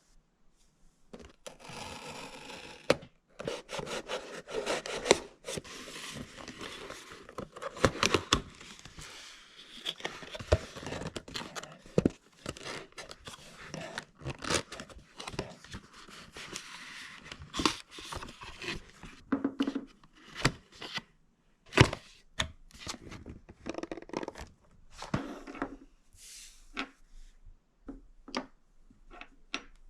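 Packaging being opened and handled: cardboard and plastic tearing, crinkling and scraping, broken by many sharp clicks and knocks.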